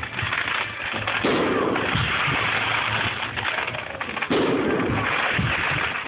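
Fireworks going off in the air: sharp bangs followed by dense crackling. The loudest bursts come about a second in and just past four seconds in.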